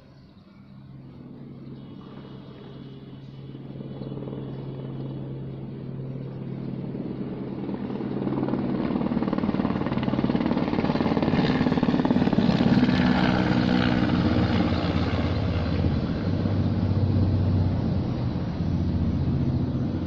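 Engine rumble with a low hum, growing steadily louder over the first half and then staying loud.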